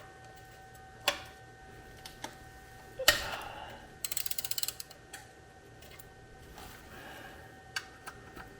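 Ratchet wrench loosening an oil drain bolt under a BMW M3: a few sharp metal knocks, the loudest about three seconds in, then a quick run of about a dozen ratchet clicks.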